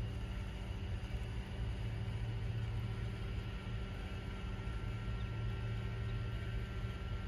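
Steady low outdoor rumble with faint, even high tones above it, unchanging throughout and with no distinct event.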